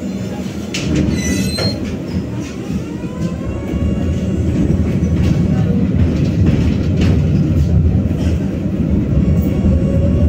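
BKM-60102 tram running on its rails: a steady low rumble of wheels on track with scattered clicks. A whine from the drive rises in pitch about two to four seconds in as the tram picks up speed, and the rumble then grows louder.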